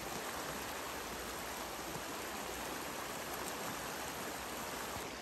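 Shallow, rocky mountain stream rushing over rocks and small rapids: a steady, even sound of running water.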